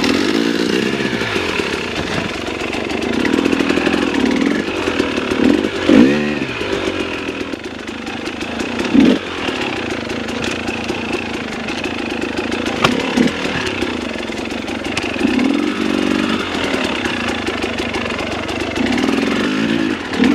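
Two-stroke engine of a KTM 300 XC TPI dirt bike revving up and down repeatedly while riding down a trail, with a few sharp blips of throttle and the odd knock from the bike.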